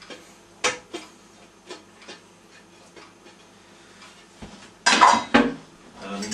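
Kitchenware clinking as chopped shallots are scraped off a plate into a cooking pot: a few light taps in the first two seconds, then two louder clatters of a plate or pan about five seconds in.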